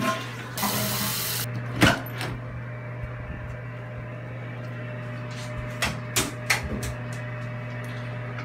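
A steady low hum under handling noise: a brief rush of noise, a loud knock about two seconds in, and a few lighter knocks and clicks later.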